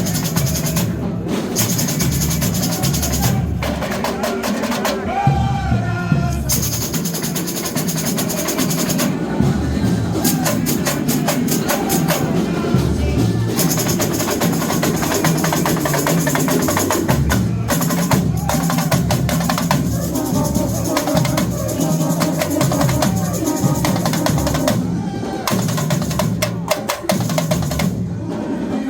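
Samba-school bateria, a large drum section of surdo bass drums, snare drums and smaller hand percussion, playing a fast samba rhythm.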